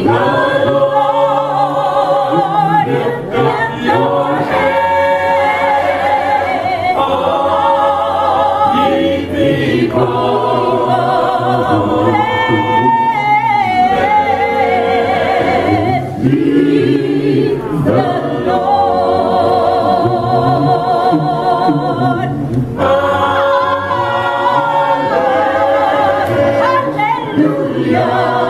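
Gospel choir of men and women singing a cappella in several-part harmony, the held notes wavering with vibrato.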